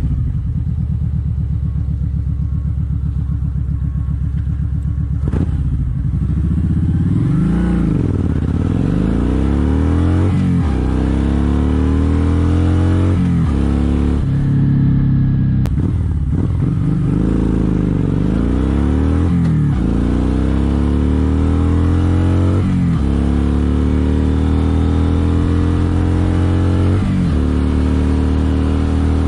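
Motorcycle engine running steadily, then accelerating through the gears. The engine note climbs and drops sharply at each shift, several times over.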